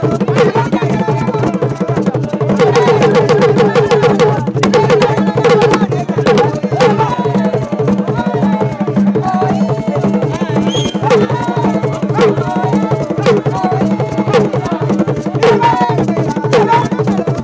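Fast drum-led percussion music with sharp, even beats, and voices calling and singing over it.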